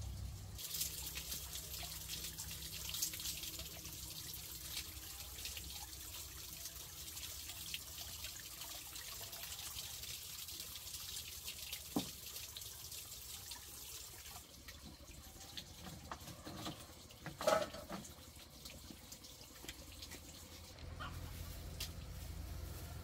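Water running steadily, stopping about fourteen seconds in, with a sharp knock about twelve seconds in and a short clatter of knocks near eighteen seconds.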